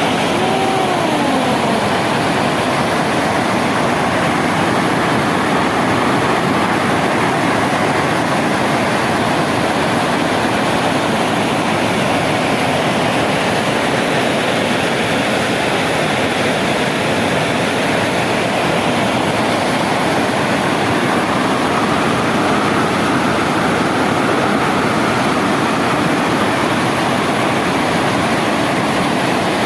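Steady, loud rush of water pouring over a dam's waterfall.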